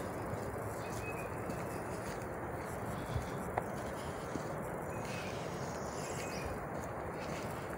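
Woodland birds calling: short faint chirps repeating every second or two and a brief rising trill about five seconds in, over a steady hiss, with a few soft clicks around three to four seconds in.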